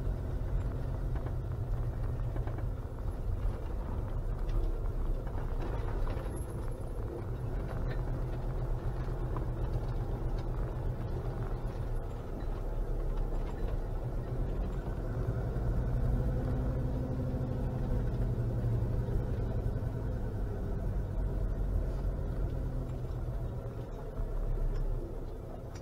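Camper van's engine and road noise heard from inside the cab while driving slowly, a steady low rumble. The engine note rises a little midway, and the noise drops near the end as the vehicle slows.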